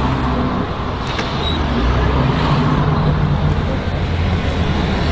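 A road vehicle's engine running, with traffic noise.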